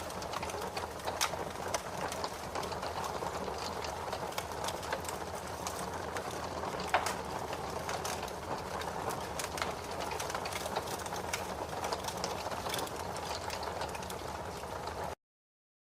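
Wood fire crackling: a steady hiss with a dense scatter of sharp pops and snaps, one louder pop about seven seconds in. The sound cuts off abruptly near the end.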